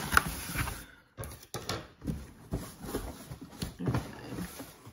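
Rustling and handling of a shopping grab bag and the packaged items inside it as it is opened and rummaged through, with a few sharp clicks and taps between one and two seconds in.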